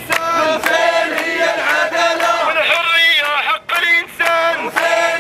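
A crowd of protesters chanting slogans in unison, led by a man's voice through a megaphone, with rhythmic hand clapping.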